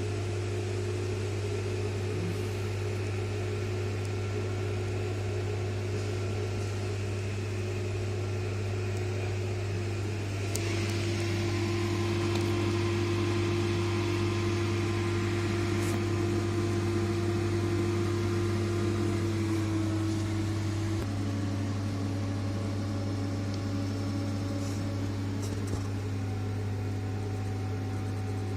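Steady electrical and machinery hum of an HVAC plant room: a low mains hum under a higher whining tone that drops a little in pitch about ten seconds in and again about twenty seconds in.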